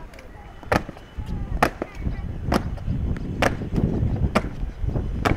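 Ceremonial slow march of an honour guard: boot heels strike a hard floor in a steady beat, six footfalls a little under a second apart, over a low rumble.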